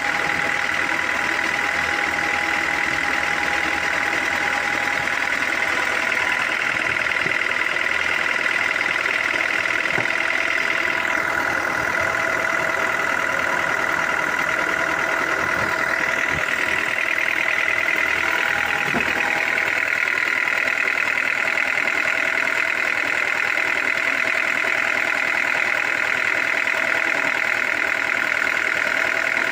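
Sawmill machinery running steadily: a continuous engine drone with a steady high whine over it.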